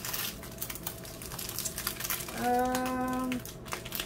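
Plastic packaging crinkling as hands handle a bag of rhinestones wrapped with a paper sheet and a rubber band. A short steady hum sounds for about a second near the middle.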